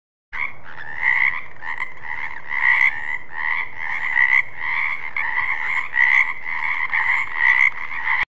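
Frog croaking in a steady run of repeated calls, each call a short rasping pulse. The calls start suddenly and cut off abruptly near the end.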